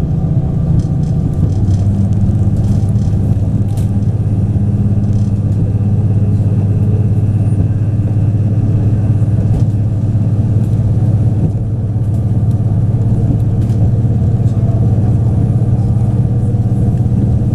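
Running sound of a Taiwan Railways DR3000 Tze-Chiang diesel multiple unit heard from on board: the diesel engine drones steadily under the rumble of wheels on rail. Its engine note changes about a second and a half in, then holds steady.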